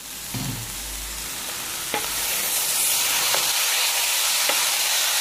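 Rice sizzling in hot oil with browned onions as it is stirred and toasted with a wooden spoon. The sizzle builds over the first couple of seconds and then holds steady, with a few light knocks of the spoon against the pot.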